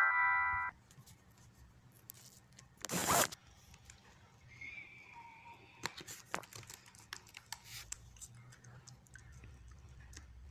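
A tune cuts off within the first second. Then a short, loud burst of rustling noise comes about three seconds in, followed by scattered faint clicks and rustles.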